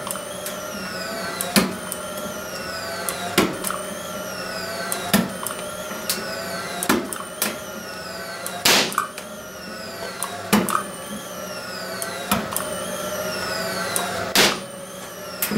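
Sunstone CD1000DP capacitive-discharge spot welder with a PG2 handpiece welding expanded steel mesh: a sharp snap at each weld, about one every two seconds, the loudest about halfway through. Between the snaps runs a high whine that glides in pitch, repeating the same way after every weld.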